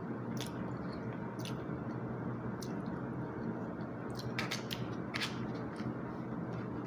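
Close-up chewing with small wet mouth clicks, and a plastic spoon clicking and scraping in a plastic meal tray as it scoops rice, with a quick run of clicks a little past four seconds in. A steady low hiss underlies it.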